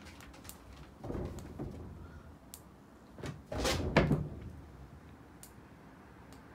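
A cat leaping up against a sliding closet door, its body and paws thumping and rattling the door panel about four seconds in, after a softer bump about a second in.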